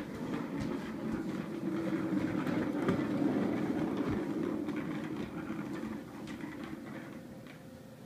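Small hard plastic wheels of a toddler's ride-on toy rolling across a hardwood floor: a steady rumble with scattered clicks, loudest about three seconds in and fading over the last two seconds.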